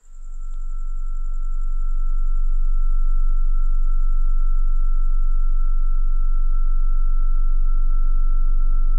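Electronic drone: a loud, deep, steady hum that comes in suddenly and swells over the first two seconds, with a steady high pure tone held above it.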